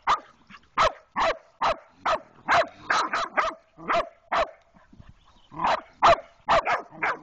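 Cur puppies barking rapidly, about two barks a second, with a short pause just past the middle.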